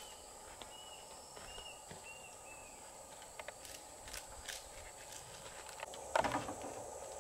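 Outdoor background of a steady drone with short high chirps repeating about every half second, a few scattered clicks and knocks, and a louder knock about six seconds in.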